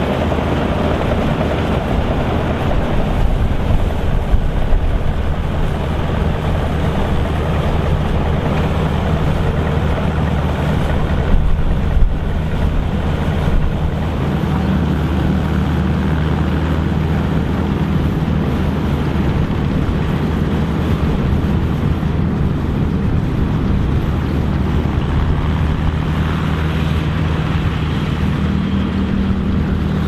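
Volvo BM ST257 combine harvester running while threshing barley: a steady low machine hum under the noise of the threshing works, with a brief louder clatter about eleven seconds in.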